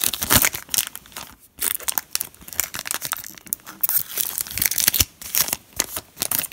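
Foil trading-card pack wrapper being torn open and crinkled by hand as the cards are slid out: a run of sharp, irregular crackling crinkles, with a brief pause about a second and a half in.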